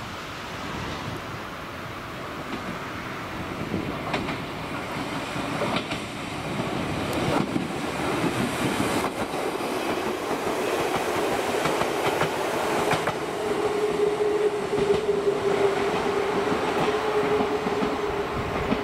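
Ichibata Electric Railway 2100 series electric train approaching and passing close by, growing louder, with its wheels clacking over rail joints several times. A steady whine comes in during the last few seconds.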